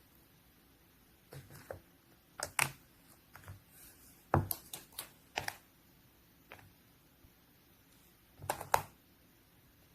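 Purple slime being pressed and stretched by hand, giving off irregular crisp clicks and small pops in short clusters, the loudest about halfway through and again near the end.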